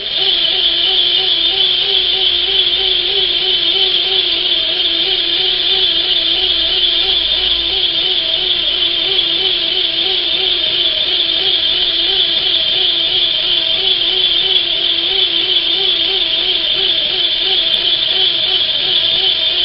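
L. O. Dietrich Little Vesta hand-crank sewing machine cranked steadily with its bobbin winder geared to the balance wheel, winding a bobbin. It makes a steady, loud whirr, a bit noisy, with a humming tone that wavers evenly in pitch; the sound starts suddenly.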